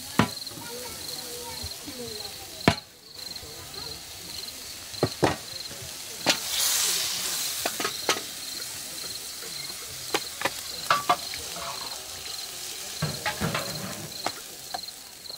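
Crickets chirping steadily in a high, evenly pulsing trill, with scattered sharp clinks and knocks of dishes and utensils and a brief hiss about seven seconds in.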